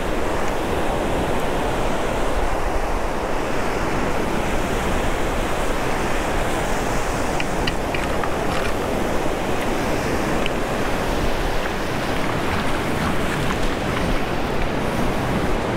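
Ocean surf breaking steadily on the beach, with wind rumbling on the microphone.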